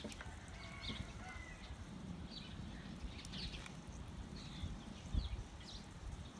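Small birds chirping in the background, several short calls and one brief held whistle, over a low outdoor rumble, with a single low thump about five seconds in.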